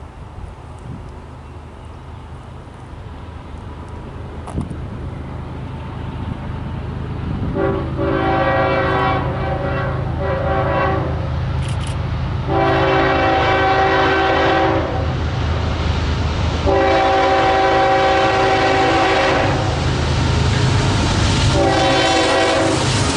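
An approaching diesel freight locomotive grows louder, then sounds its multi-note air horn in four long blasts, the first about seven seconds in and the last still sounding at the end.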